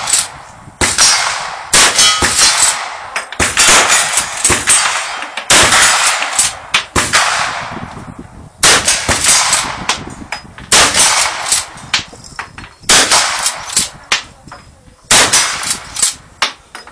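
A string of rifle shots, one every one to two seconds and spaced wider toward the end, each followed by a ringing clang from steel targets being hit.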